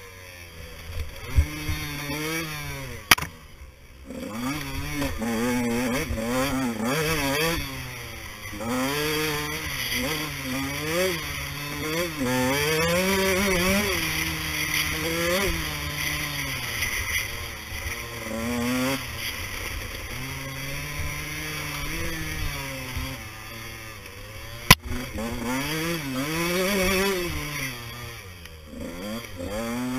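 Enduro motorcycle engine under way on a dirt trail, its pitch rising and falling again and again with throttle and gear changes. Two sharp knocks sound over it, one about three seconds in and one about twenty-five seconds in.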